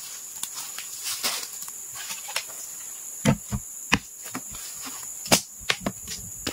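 Scattered wooden knocks and clatters as sawn Borneo ironwood (ulin) pieces are handled and pulled from a log, the loudest about three, four and five seconds in. A steady high insect trill runs underneath.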